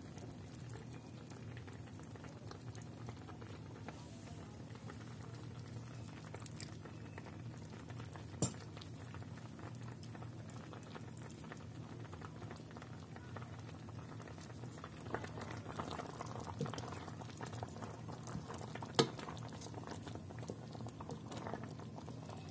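Yellow plum marmalade boiling in a stainless steel pot: steady bubbling with many small pops, and two sharp, louder pops about eight and nineteen seconds in. A wooden spoon stirs through the bubbling mixture near the end.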